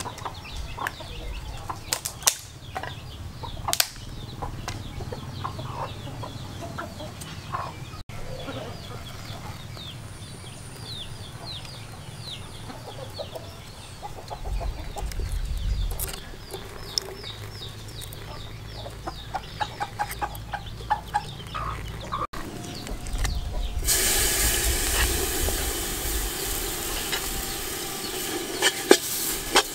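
Chickens clucking with scattered clicks and knocks of work at a clay charcoal stove. Near the end a loud, steady sizzle starts as curry paste is scraped into hot oil in an aluminium pot.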